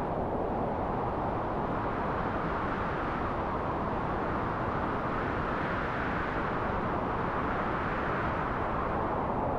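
Wind sound effect: a steady rushing noise that swells and rises in pitch around the middle, then settles back down.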